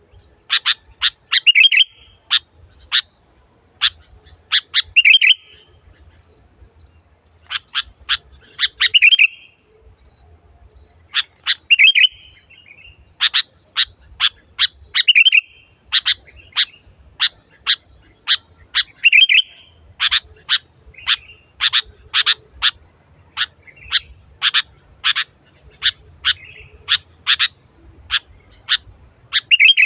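Sooty-headed bulbul (kutilang) singing loudly and clearly: quick runs of sharp chirps, each run often ending in a short, fuller warbled phrase, repeated over and over.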